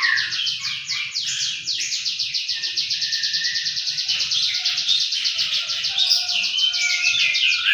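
Songbirds chirping in a dense, continuous chatter of rapid, high repeated notes, with a few lower warbling phrases mixed in.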